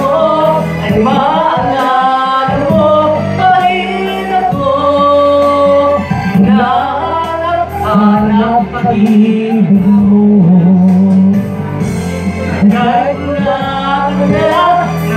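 A man singing a slow song into a handheld microphone, his voice amplified over accompanying backing music.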